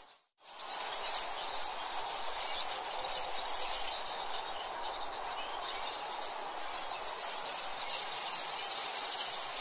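A steady, dense, high-pitched chorus of insects, with a brief dropout just after the start.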